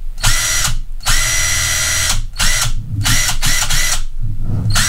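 Bauer cordless power tool motor triggered in about five short runs. Each run spins up to a steady whine and then stops. The tool is powered by a 6 Ah DeWalt FlexVolt battery through a battery adapter.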